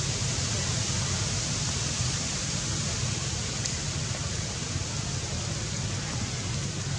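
Steady outdoor background noise: a low rumble under an even hiss, with no monkey calls standing out.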